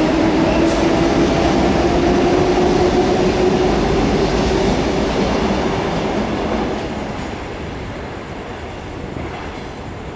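Electric multiple-unit train departing: a steady traction whine from its GTO chopper control over the rumble of wheels on rail, fading away after about six seconds as the train draws off.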